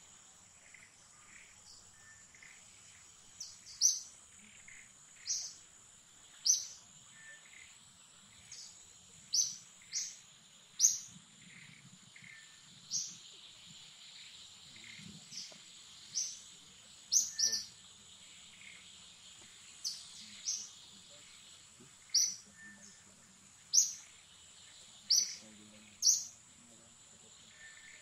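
Bird giving short, sharp, falling chirps, repeated every one to two seconds, over a steady high-pitched insect drone of forest ambience.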